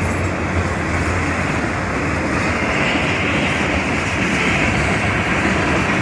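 Freight train's cars rolling past close by: the steady rumble and rush of steel wheels on the rails as boxcars and tank cars go by.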